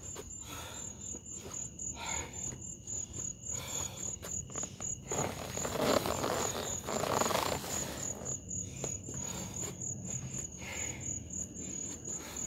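Crickets chirping, a steady high-pitched pulsing. A louder stretch of noise comes about five seconds in and lasts a few seconds.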